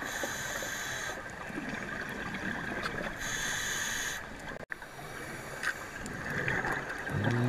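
Underwater ambience from a scuba dive: a steady watery hiss, with two hissing breaths drawn through a scuba regulator, each about a second long and about three seconds apart.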